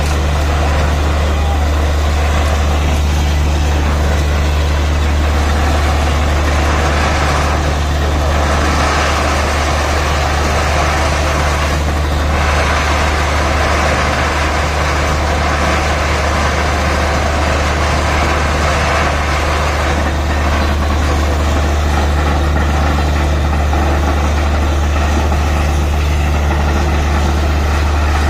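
Truck-mounted borewell drilling rig running steadily with a deep engine drone, while water and air gush out of the borehole with a constant rushing hiss: the bore has struck water.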